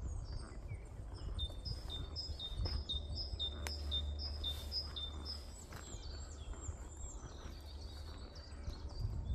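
Songbirds singing in a spring woodland, one bird repeating a short two-note phrase about twice a second for several seconds, over a steady low rumble.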